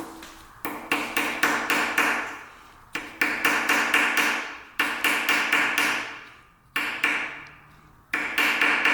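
Hammer blows on metal in quick bursts of several strikes, about five a second, each strike ringing briefly: hammering at the oil-galley plug in a bare Honda K24 engine block to get it out.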